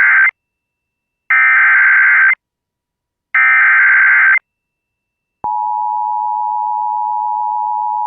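Emergency Alert System SAME header: three identical bursts of digital data tones, about a second each with a second of silence between them, encoding a severe thunderstorm warning. About five and a half seconds in, the steady EAS attention tone begins.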